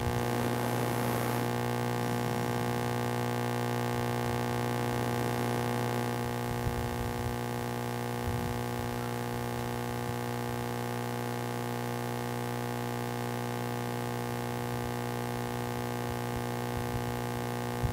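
Steady electrical mains hum from the amplified sound system: a low, even buzz with many overtones.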